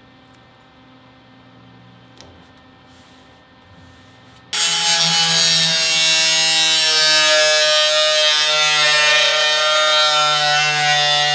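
After a few quiet seconds, a cordless angle grinder starts abruptly and runs with a loud, high whine, its pitch dropping slightly as it grinds a welded-in sheet-metal patch panel flush with the car body.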